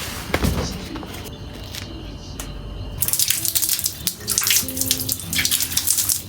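Tap water running and splashing into a sink, starting about three seconds in.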